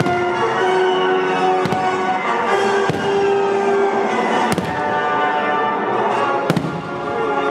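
Aerial firework shells bursting: four sharp bangs spaced a second or two apart. Music with long held notes plays throughout.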